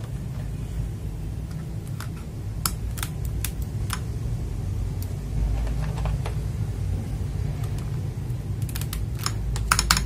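Mechanical keyboard (FL Esports MK870) keys clacking: scattered single clicks, then a fast run of keystrokes starting just before the end. A steady low hum sits underneath.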